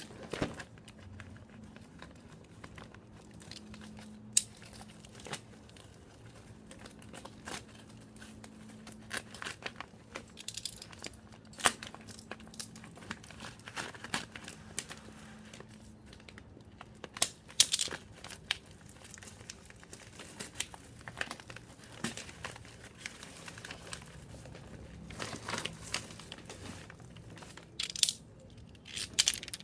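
Brown packing tape being peeled and paper and plastic wrapping torn off a long parcel: crinkling and rustling on and off, with a few sharp rips.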